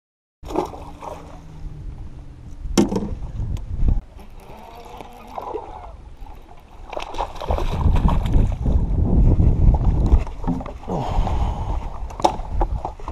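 Water sloshing and splashing around a bass boat, with sharp knocks of gear being handled on the deck. A low wind rumble on the microphone gets louder about halfway through.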